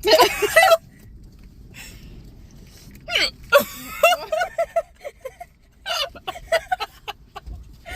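A person hiccuping repeatedly: short, sharp vocal catches with breathy, half-voiced sounds, one at the start, another about three seconds in, then a quick run of them near the end. The hiccups follow eating spicy food, which her friend suspects is the cause.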